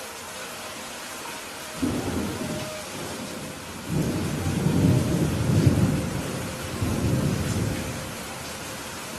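Steady rain with a roll of thunder: a low rumble breaks in about two seconds in, swells to its loudest around the middle and dies away near the end.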